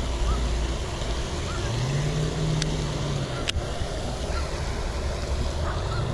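Wind rumbling on the microphone outdoors, with a steady low hum for about a second near the middle and two sharp clicks around the middle.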